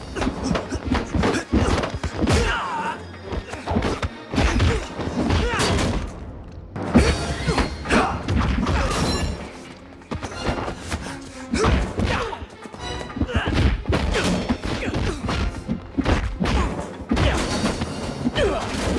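Movie fight-scene sound effects: a fast, irregular run of punch and kick impacts and thuds over an action music score.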